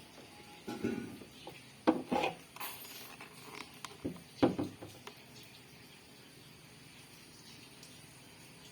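A few sharp metallic clinks and clatters of metal parts or tools being handled, with the loudest about two seconds in and again about four and a half seconds in.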